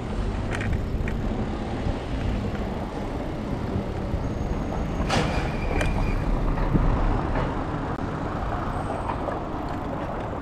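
Wind rushing over the microphone and tyre rumble on paving stones while a rental bicycle is ridden along. About five seconds in there is one sharp click with a brief high tone after it.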